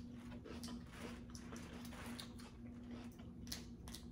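Faint eating sounds: people eating a seafood boil, with scattered small clicks and chewing, over a steady low hum.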